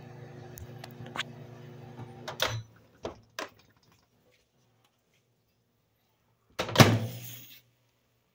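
A microwave oven's steady hum cuts off about two and a half seconds in, followed by a few sharp clicks and knocks. Then, about seven seconds in, a door shuts with a loud thunk, the loudest sound.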